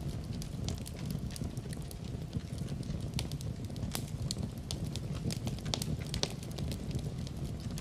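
Wood fire burning in a fireplace: a steady low rumble of flames with irregular, sharp crackles and pops from the burning logs.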